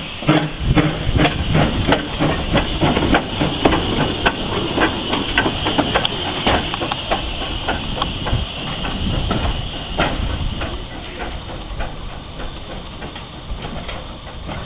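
Small saddle-tank steam locomotive pulling away, its exhaust chuffing in quick, even beats over a hiss of steam, growing fainter as it moves off.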